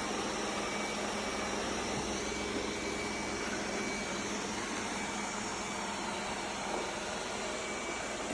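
Robot vacuum cleaner running: a steady whir from its suction fan, with a faint high whine over it.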